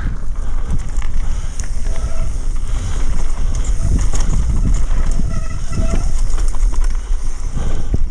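Wind buffeting the camera's microphone with a steady low rumble as a mountain bike descends a rough dirt and gravel trail at speed, its tyres and frame rattling over the loose surface.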